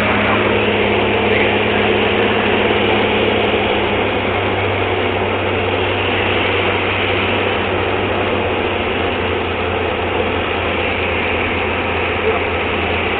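Steady engine and propeller drone of a light aircraft, heard inside its cockpit on the landing approach.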